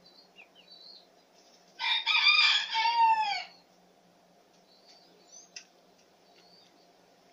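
A rooster crowing once, a loud call of nearly two seconds in a few linked segments that falls in pitch at the end. Faint short chirps of small birds come and go around it.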